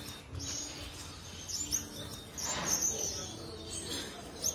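Birds chirping in many quick, short calls, over a soft rustle of handling.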